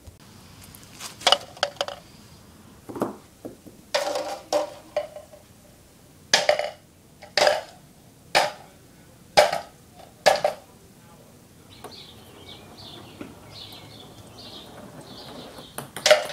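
Ping pong ball bouncing and knocking on hard surfaces: a run of sharp clicks, several of them about a second apart.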